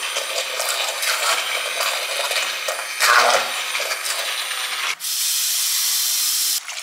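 Immersion hand blender running in a pot of soup, puréeing it with a steady whining buzz. About five seconds in it cuts out for a moment, runs again with a brighter, harsher sound, then stops shortly before the end.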